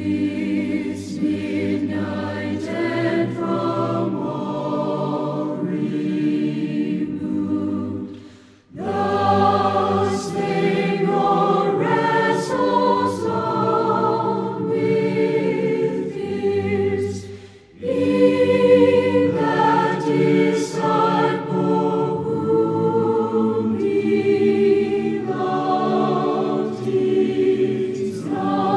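A choir singing a slow hymn in long sustained phrases, with two brief breaths between phrases, about a third and two thirds of the way through.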